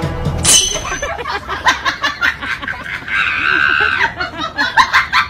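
A person laughing in short, rapid snickers, with a longer, higher note of laughter about three seconds in.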